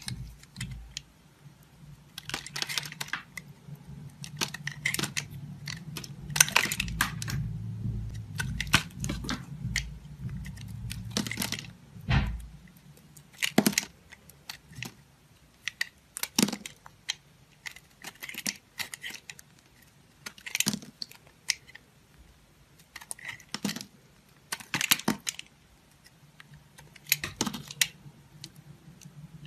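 Knife cutting into dry soap: a series of sharp crunches and cracks, clustered thickly in the first part, then coming singly or in short bursts every second or two.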